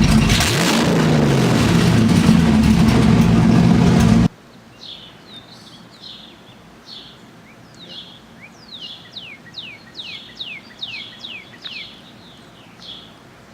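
Mustang's engine running loudly, its pitch sliding up and down as it is revved, then cut off abruptly about four seconds in. After that, a bird sings a rapid series of short downward-sweeping chirps.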